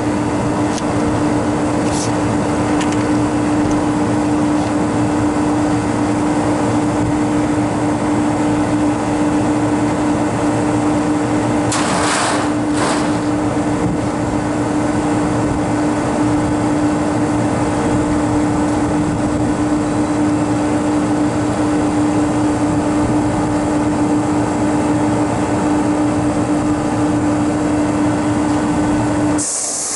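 Walk-in freezer condensing unit running with a steady hum and a strong low tone, its condenser coil plugged with dust. About twelve seconds in and again near the end come short hissing blasts as the coil is blown out.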